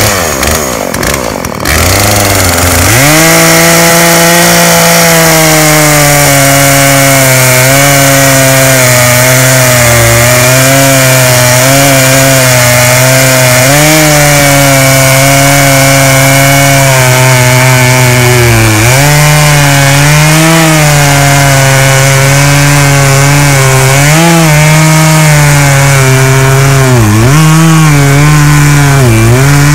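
Poulan Pro 42cc two-stroke chainsaw opening up to full throttle about two seconds in and running hard while it cuts through a log, its pitch dipping briefly now and then as the chain bites into the wood.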